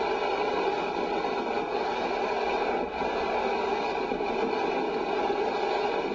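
A boat's engine running steadily, a constant drone with no change in speed.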